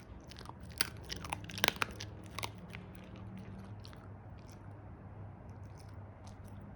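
Dog chewing and crunching at a KONG toy and the food from it. The sharp crunches come thick in the first couple of seconds, then thin out to occasional ones, over a low steady hum.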